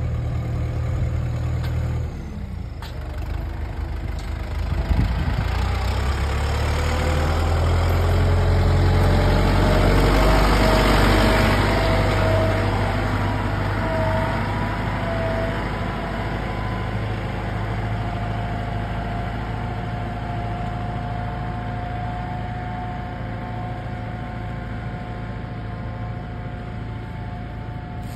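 Kubota tractor's diesel engine running as the tractor drives by, loudest about ten seconds in as it passes close and then easing as it pulls away. A steady whine sits over the engine for the second half.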